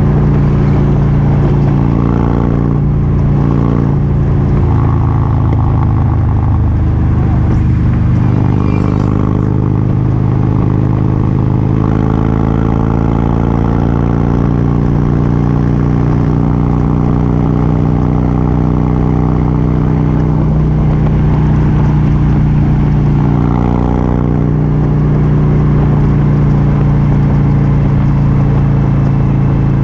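Motorcycle engine running steadily at cruising speed with wind rush, heard from a camera on the moving bike; the pitch shifts a little in the first few seconds, then holds steady.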